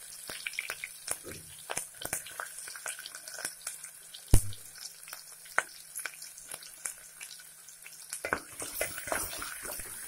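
Chopped onions and green chillies frying in hot oil with mustard and cumin seeds in a steel pot: a steady sizzle with many sharp crackles and pops. A single loud knock comes about four seconds in, and a wooden spatula stirs the onions near the end.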